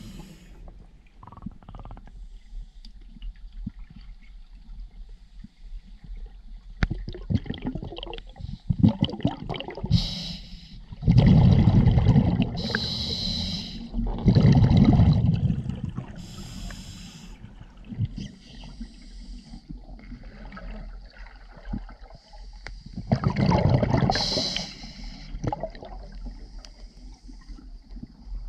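Scuba regulator breathing heard underwater: a hiss on each inhale, then a low rush of exhaled bubbles, a few breaths loudest in the middle and again near the end. Between breaths there is faint clicking and crackling.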